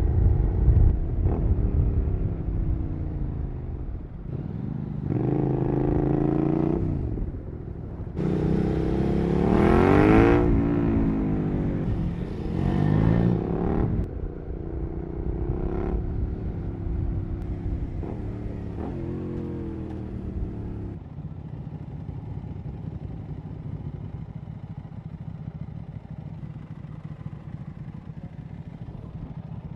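2008 Suzuki SV650's 645 cc V-twin through a Cobra SC3 exhaust, accelerating through the gears: the revs climb in several steps through the first half, with a brief drop at a shift, then fall away as the bike slows and settle to quieter steady running.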